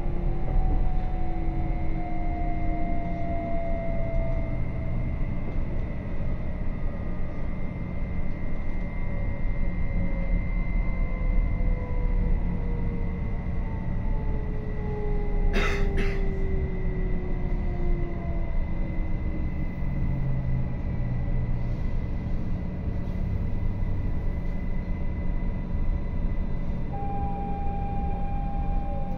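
RABe 526 electric multiple unit heard from on board: steady wheel and running rumble with the whine of its electric traction drive, the whine's tones falling slowly in pitch as the train slows. A single sharp click about halfway through, and a new steady whine tone comes in near the end.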